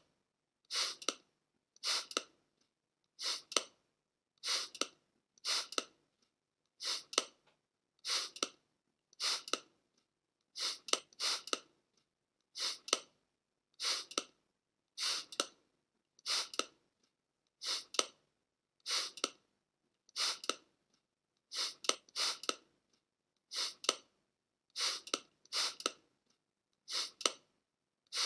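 Trigger spray bottle being squeezed again and again, a short hissing spray about once a second.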